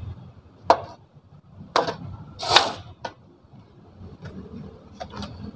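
Hand digging in a sewer excavation pit: a handful of sharp, scattered knocks and one longer scrape as tools work against the hard bottom, which the crew takes for buried poured concrete.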